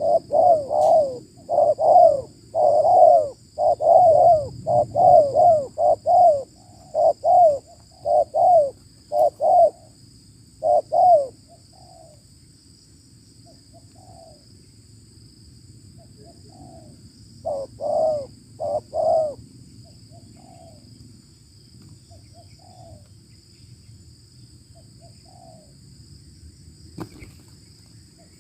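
Spotted doves cooing: a fast run of loud, repeated coos for about the first eleven seconds, then fainter scattered coos, with another loud group of four coos around eighteen seconds in. A faint steady high hum runs underneath, and a single click comes near the end.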